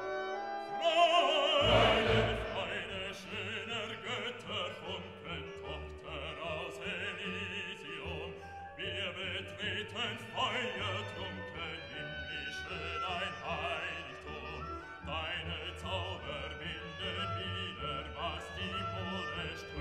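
Background classical music: an orchestra with an operatic singing voice.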